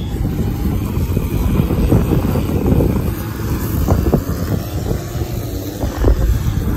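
String trimmers (brushcutters) running steadily as they cut grass, with wind buffeting the microphone.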